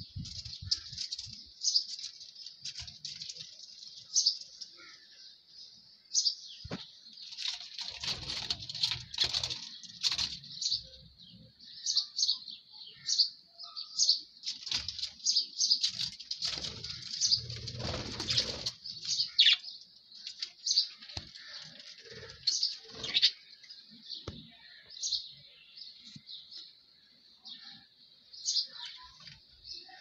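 Pet budgerigars chattering, a dense run of quick, high chirps from several birds. A few low rustles and thumps come in around the middle.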